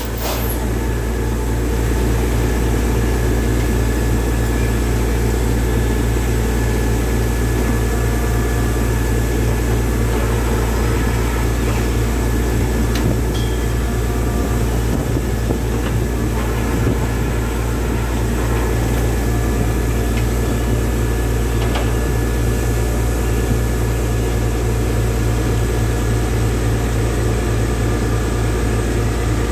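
Tractor-mounted borewell drilling rig running steadily while drilling, a loud, even machine drone with a deep low hum and a faint steady whine above it.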